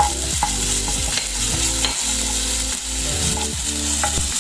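Ginger-garlic paste and green chillies sizzling in hot ghee and oil in a pan, stirred with a spatula that clicks against the pan a few times.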